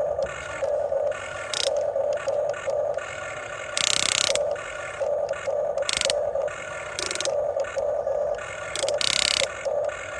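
Huina 1550 RC excavator's small electric motors and geared drives whining in short, repeated bursts as its functions are worked, with a few louder scraping rushes.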